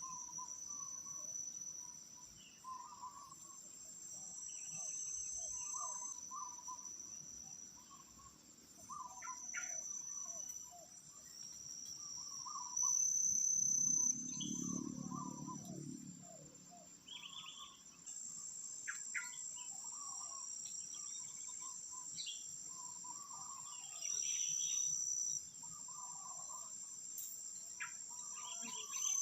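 Tropical forest insects (crickets or cicadas) keep up a steady high-pitched drone whose strands rise and fall in level every few seconds, while birds call with many short notes. A brief low rumble rises and fades about halfway through.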